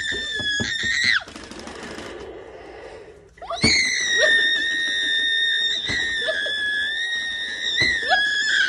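A child screaming in two long, high, sustained yells, with a quieter noisy stretch between them, and a few knocks on a cardboard toy crate.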